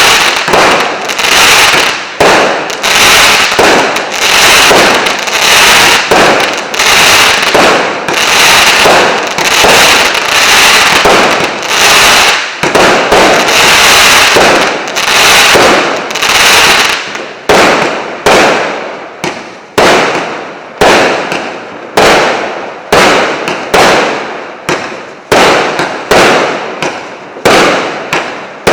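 Combined fireworks battery of 1.2-inch and 1-inch shots firing in quick succession, each shot followed by its burst. The shots come dense and overlapping at first, then about one a second, more separate, from a little past the halfway mark.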